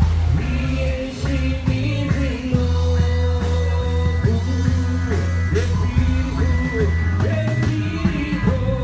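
Worship song with a singer, steady bass notes and drum hits.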